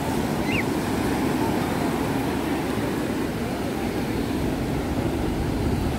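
Steady surf noise from breaking waves, with wind rumbling on the microphone.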